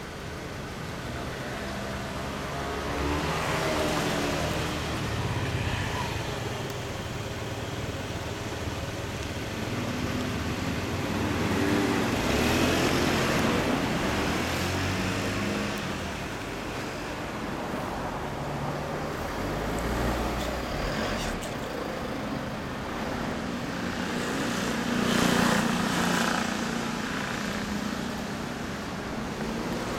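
Honda CBR400R's parallel-twin engine running through an aftermarket Arrow exhaust silencer, idling with a few brief revs that swell in level and pitch.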